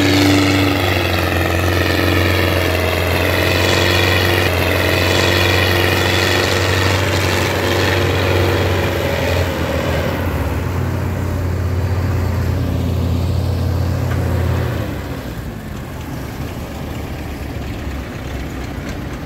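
Belarus 80.1 tractor's four-cylinder diesel engine working under load as it pulls a heavily loaded sugarcane trolley, a steady deep engine note. About fifteen seconds in the engine sound falls away and grows quieter as the tractor moves past.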